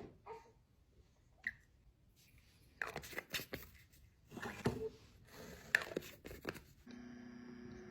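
Light clicks, taps and short rustles of small objects being handled. Near the end a steady hum starts.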